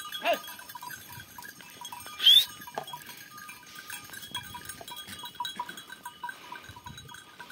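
A flock of goats and sheep on the move, their small neck bells tinkling without pause. Goats bleat now and then, and one loud, high bleat comes about two seconds in.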